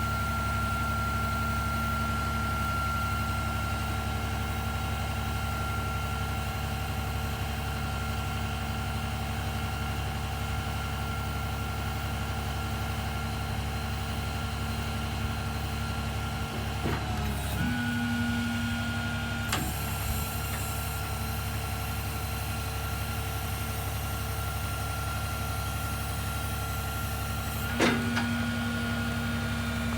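Engine-driven machinery running steadily with a constant high whine over a low hum. A few sharp clicks; twice the hum steps up in pitch and holds, as if a load comes on.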